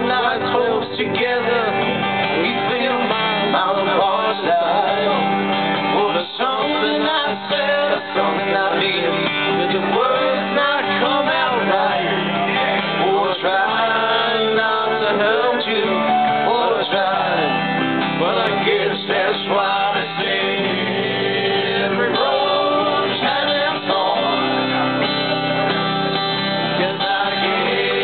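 Live band playing an upbeat country-style song: strummed acoustic guitar, electric guitars and keyboard, with a man singing lead.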